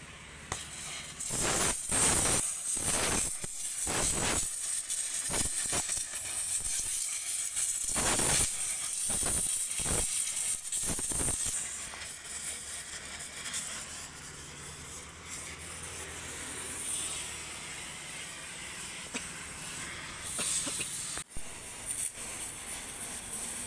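Oxy-fuel gas welding torch hissing steadily as its flame heats and welds a rusted scooter silencer. In the first half the hiss is broken by a series of loud, irregular bursts of noise.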